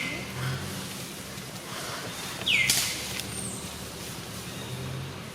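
A short, high-pitched animal call that sweeps down and then holds its note, repeated once about two and a half seconds in, over a faint low hum.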